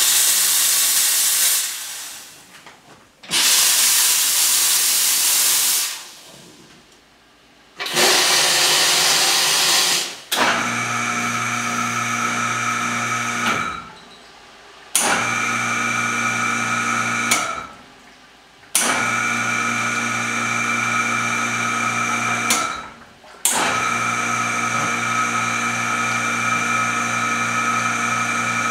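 Brasilia Portofino two-group espresso machine: the steam wand is purged in three loud bursts of hiss. Then the pump hums in short runs that stop and restart, and finally runs steadily as espresso brews into two glasses.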